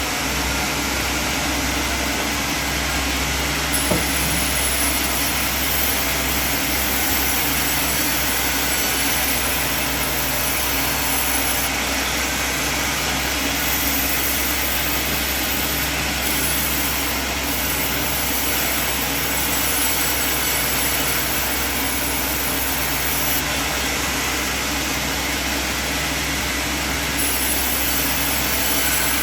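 Sawmill machine running steadily, a constant low motor drone under a broad noise from the saw, with one short knock about four seconds in.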